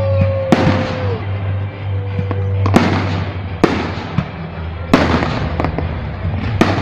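Aerial fireworks shells bursting: five sharp bangs spaced one to two seconds apart, each trailing off.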